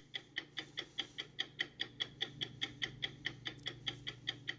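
Rapid, even ticking, about six ticks a second, over a faint steady low hum.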